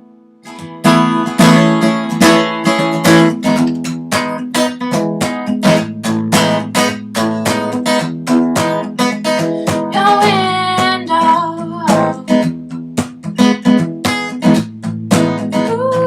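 Acoustic guitar strumming chords in a steady rhythm, an instrumental break in a folk song, starting after a brief pause about half a second in.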